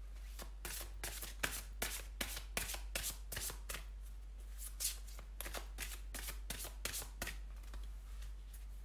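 Gaïa oracle cards being shuffled by hand: a quick run of sharp papery flicks that thins out and stops about seven seconds in.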